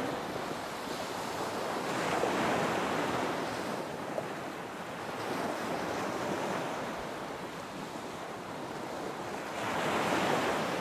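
Ocean surf breaking on a beach: the rush of each wave swells and fades every few seconds, loudest near the end.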